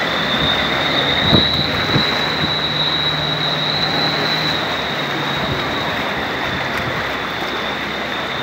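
Floodwater washing and sloshing as a pickup truck drives through it, with a low engine hum for a few seconds in the middle, over a steady high-pitched whine.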